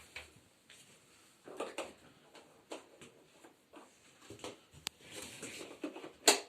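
Plastic parts and packaging of a bagless vacuum cleaner being handled: scattered light clicks and rustles, with one sharp click near the end. The vacuum's motor is not running.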